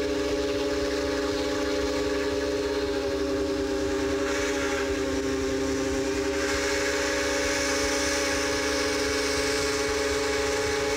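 Steam whistle of a 1927 Baldwin 2-8-0 Consolidation locomotive blowing one long, steady blast of several notes sounding together, cutting off sharply at the end.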